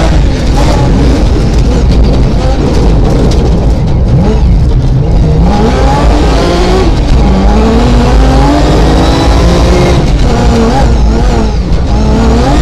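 Rally car engine heard from inside the cabin, accelerating hard: its pitch climbs through each gear and drops at the shifts. A loud low rumble of tyres and body runs underneath.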